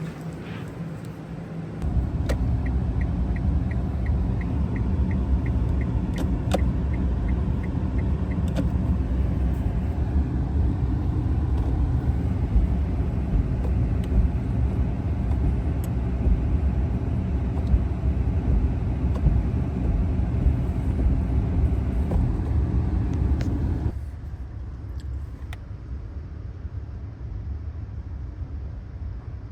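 Cabin climate-control blower fan of a 2013 Nissan Leaf running at high speed as the heater is tested: a steady low rumble that switches on about two seconds in and cuts off abruptly near the end. A faint even ticking, about three a second, runs over its first few seconds.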